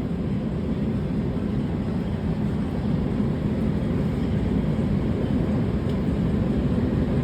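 Steady low rumble inside a Los Angeles Metro A Line light-rail car.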